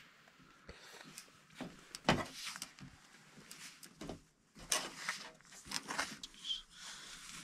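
Irregular knocks and clicks of objects being handled, loudest about two seconds in and again near the five-second mark.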